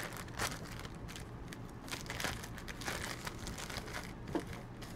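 Clear plastic packaging bag crinkling as it is handled and opened by hand, a run of irregular crackles.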